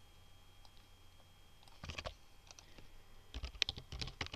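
Computer keyboard typing: a few keystrokes about two seconds in, then a quicker run of keystrokes near the end as a gpg command is entered in a terminal.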